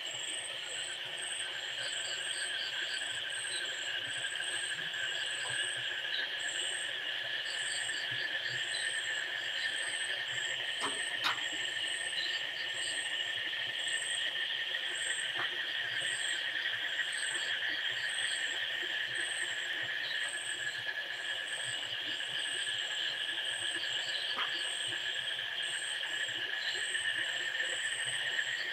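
Steady chorus of insects: a continuous high drone with a short, higher chirp repeating about once a second. A faint click sounds about a third of the way in.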